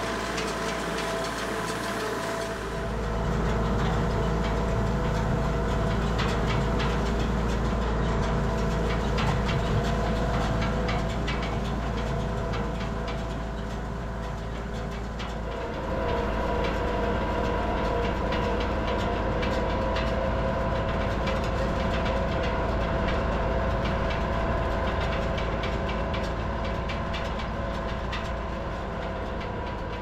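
Tractor engine running steadily while pulling a hay rake, with a constant clattering rattle of many quick clicks from the rake. The engine gets louder about two and a half seconds in, and its note shifts about halfway through.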